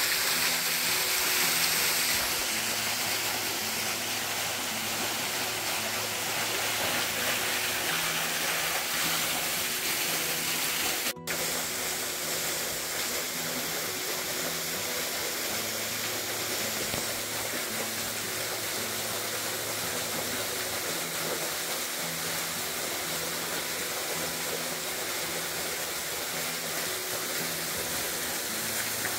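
Maple Falls waterfall rushing steadily, with soft background music of held low notes. The sound cuts out for an instant about eleven seconds in.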